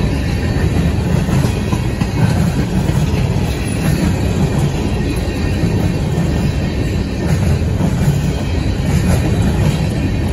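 Slow CSX freight train of covered steel-coil cars rolling past close by, its wheels rumbling steadily over the rails.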